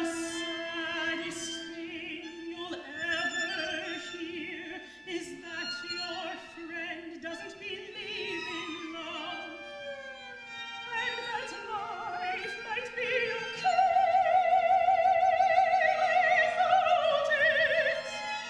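Classical soprano singing with string quartet accompaniment of two violins, viola and cello, the strings holding sustained notes under her line. About two-thirds of the way through she rises to a loud, long held note with wide vibrato that lasts nearly to the end.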